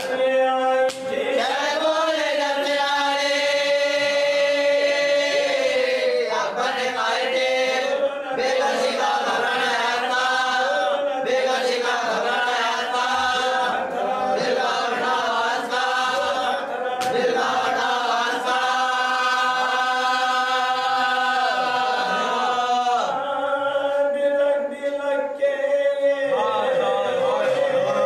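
Male voice chanting an Urdu marsiya (elegy) without instruments, in long melodic phrases of held notes.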